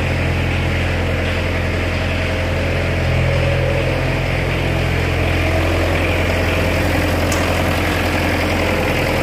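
Self-propelled crop sprayer's engine running steadily up close, a loud, even low hum with no change in speed while the machine is eased into position.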